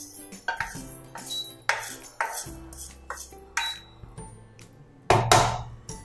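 Wooden spatula scraping and tapping dry-roasted cumin seeds out of a nonstick pan into a small bowl: a series of short scrapes and knocks, with the loudest clatter about five seconds in as the pan goes back down on the cooktop. Soft background music underneath.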